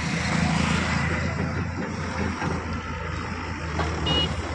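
Excavator's diesel engine running steadily, mixed with passing highway traffic, with a short vehicle horn beep about four seconds in.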